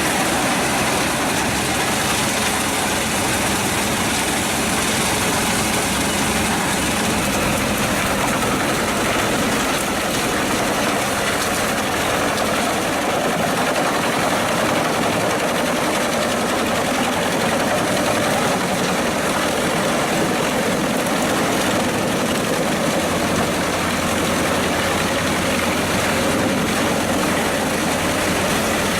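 Pezzolato PTH 900 M drum wood chipper running steadily, its Scania DC09 five-cylinder diesel engine and spinning drum making a loud, even mechanical noise.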